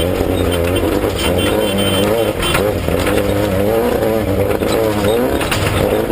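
Off-road race vehicle's engine running hard, its pitch rising and falling quickly as the revs change, with scattered knocks and rattles.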